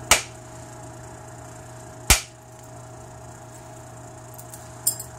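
An antler billet strikes the edge of an obsidian preform twice, about two seconds apart, with sharp cracks as thinning flakes come off. A lighter double click follows near the end.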